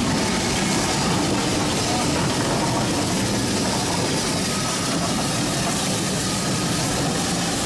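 BR Standard Class 4MT 2-6-4 tank steam locomotive standing with steam up, giving a steady hiss and rumble with no beats or pauses.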